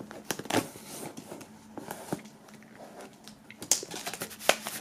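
Plastic shrink-wrap on a cardboard box being slit with a knife and pulled off by hand, giving irregular crinkles and crackles, the sharpest about half a second in and near the end.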